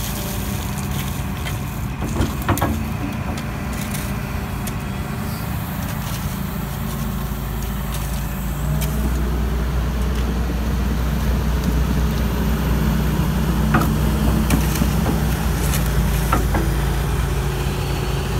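Hitachi ZX225 excavator's diesel engine running steadily as the machine works, getting louder about halfway through. A few short sharp knocks sound over it.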